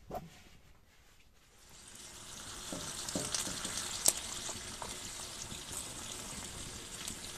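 A short rustle near the start, then thin potato slices sizzling in hot oil in a pan. The sizzle comes in about two seconds in and holds steady, with a few sharp clicks and pops, the loudest about four seconds in.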